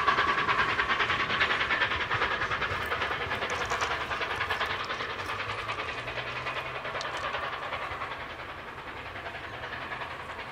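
Steam locomotive working hard as it pulls a train away, its exhaust beating in a quick, even rhythm that fades steadily as it draws into the distance.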